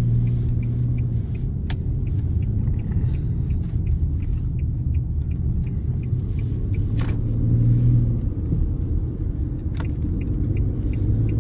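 Steady low rumble of a car driving, its engine and road noise heard from inside the cabin, with a few short clicks.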